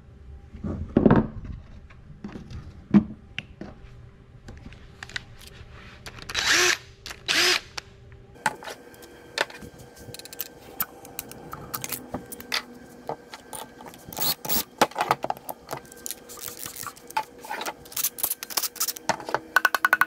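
Hand tools and steel engine parts clinking and knocking during engine teardown, with two short loud bursts of noise about a second apart near the middle, then a long run of rapid clicks as fasteners on the block are worked.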